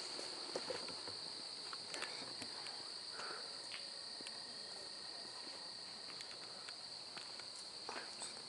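Steady chorus of night insects, a constant high trill, with a few soft footsteps on the path.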